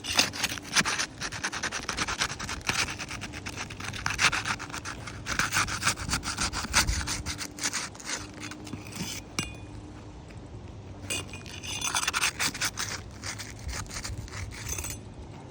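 Asphalt roof shingles being scraped and rubbed in quick, gritty strokes as a damaged shingle is worked loose. There are two spells, with a short pause a little past the middle.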